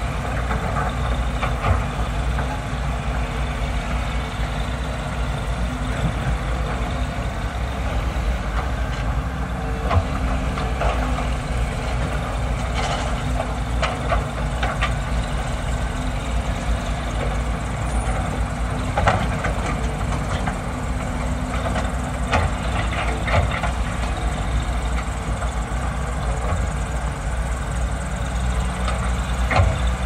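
Diesel engines of hydraulic excavators, a Caterpillar 320B L among them, running steadily while digging, with scattered sharp clanks of the bucket on rock.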